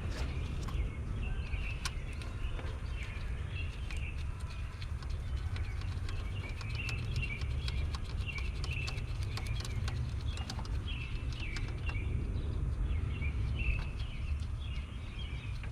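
Small birds chirping over and over, against a steady low rumble, with scattered light clicks and taps.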